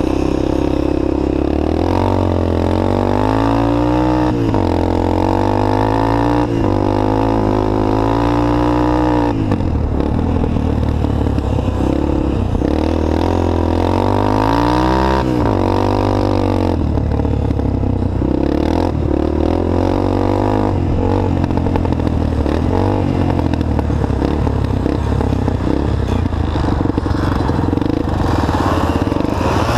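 Three-wheeled ATC's engine running hard, heard close up from on board: the pitch climbs as it accelerates and drops sharply when the throttle is eased or the gear changes, several times, then holds steadier near the end.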